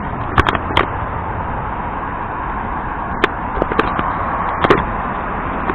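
Arrma Kraton RC truck with its stock BLX brushless system being driven hard over rough ground, a steady noisy running sound broken by sharp knocks, three in quick succession in the first second and two more later.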